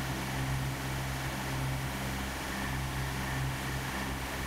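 Tormach 770M+ CNC mill running a roughing cut with an end mill in a metal block: a steady machine hum with a few low tones and a fainter higher whine, unbroken throughout.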